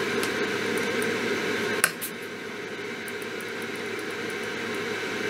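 Steady fan-like background hum at the workbench, with one sharp click a little under two seconds in and a few faint light ticks after it, as a new capacitor is soldered onto the circuit board.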